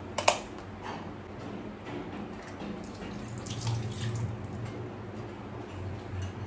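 Water running from a tap into a sink, with a sharp click about a third of a second in.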